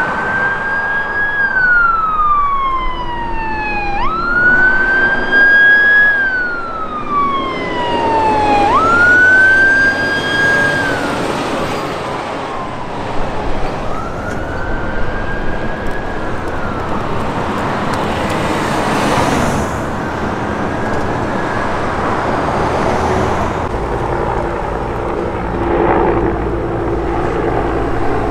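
A responding fire vehicle's siren wailing, rising quickly and falling slowly about every four seconds, loud at first and fading after about twelve seconds, over the noise of heavy trucks passing on the road. Near the end a helicopter's steady drone comes in.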